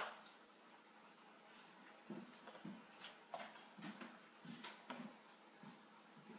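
Near silence with faint, soft footsteps on a floor, about two or three a second, starting about two seconds in.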